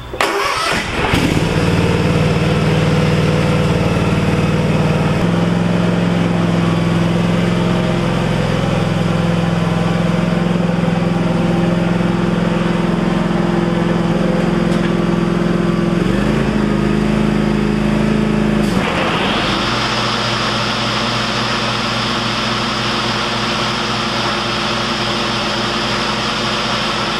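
Cub Cadet Ultima ZT2 zero-turn mower engine starting and running steadily, test-run after a spindle replacement to check for vibration. Its pitch steps up about five seconds in and again around sixteen seconds; around nineteen seconds it dips briefly and a brighter hiss joins the engine note.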